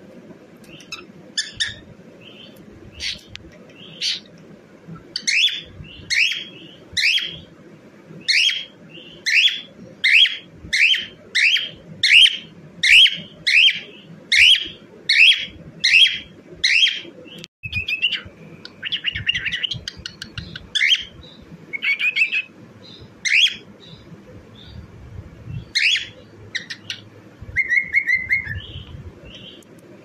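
Cockatiel singing: a long run of short, rising chirps about two a second, then a looser warbling phrase, a few more chirps and a lower held whistle near the end.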